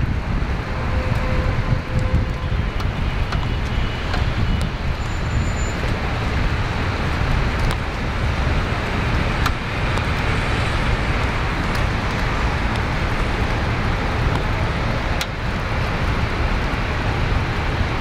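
Steady rumble of city street traffic mixed with wind, the wind buffeting the microphone.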